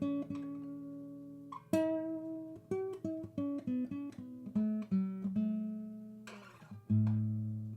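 Background music: acoustic guitar picking notes and letting chords ring.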